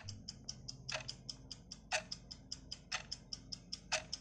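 Clock-style ticking sound effect for a quiz countdown timer: quick, even ticks about five a second, with a louder tick on each second.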